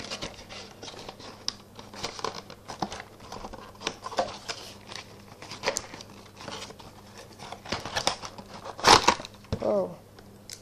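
Cardboard toy box and plastic blister packaging handled and pulled apart by hand: irregular crinkling, scraping and small clicks, with one louder crackle about nine seconds in.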